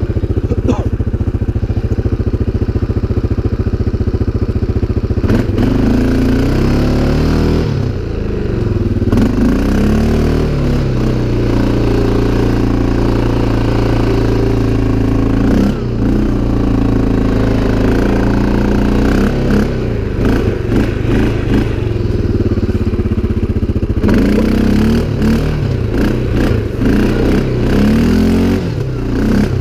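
CFMoto 500 ATV engine idling for about five seconds, then revving up and down repeatedly as the quad is ridden through mud.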